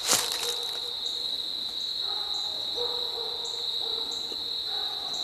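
Steady high-pitched trilling of insects, likely crickets, in the dusk woods, with one crisp crunch of dry leaves right at the start.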